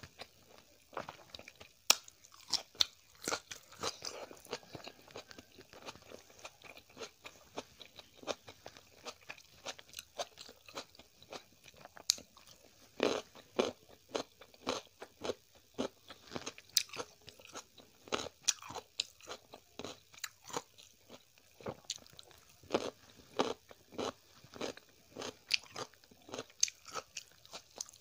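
Close-miked chewing and biting of hand-eaten rice and vegetable curry, a dense, irregular run of wet mouth clicks and small crunches.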